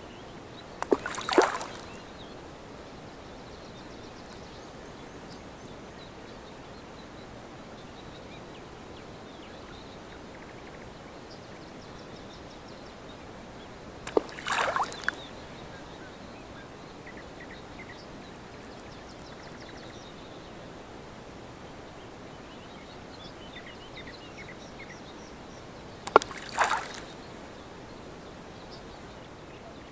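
Three casts of a float-fishing rig into still water: about a second in, midway through and near the end. Each is a sharp click followed by a short splash as the float and bait land.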